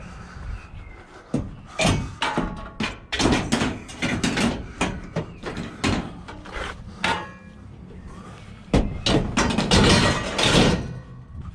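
Pieces of scrap metal being handled and thrown down, giving a run of irregular clanks and knocks, some of them briefly ringing. A louder, dense burst of clattering comes near the end.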